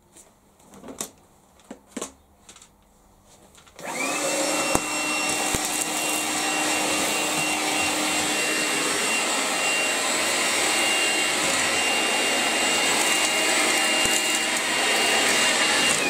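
A few light handling knocks, then about four seconds in a Makita DCL180 18 V cordless vacuum switches on and runs steadily with a high motor whine, sucking up sawdust from a wooden workbench.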